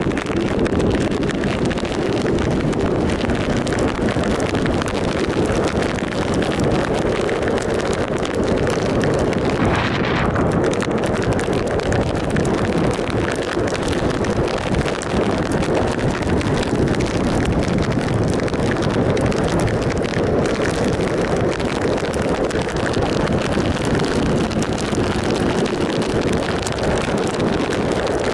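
2007 Triumph Sprint ST 1050's three-cylinder engine running steadily at road speed, largely buried under wind rushing over the microphone.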